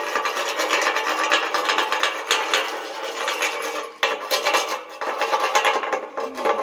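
Welder's chipping hammer scraping and chipping slag off spot welds on galvanized steel C-channel: a rapid grating rasp of steel on steel with many small knocks. It breaks off briefly about four seconds in.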